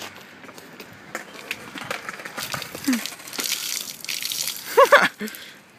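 Water pouring from a large plastic water bottle and splashing over a person's head, starting about halfway in. Near the end comes a brief, loud vocal cry.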